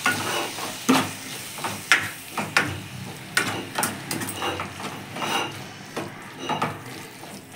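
Steel ladle stirring mutton liver pieces through thick masala in a frying pan, scraping and knocking against the pan at irregular strikes about once a second.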